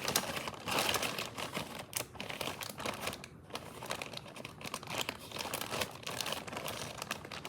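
Irregular crinkling and rustling of packaging and bag material as small items are handled and pulled out of a bag pocket.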